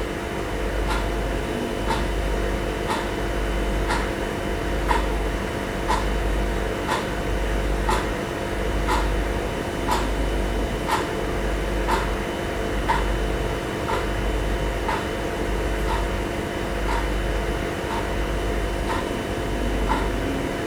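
A steady machine hum with a light tick about once a second.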